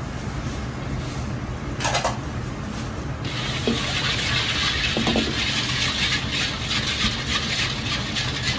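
Hot oil ladled into dark sauce in a carbon-steel wok starts a strong sizzle and crackle about three seconds in. It goes on over a steady low rumble from the stove. A metal ladle clanks against the wok once just before the sizzle and clinks lightly twice during it.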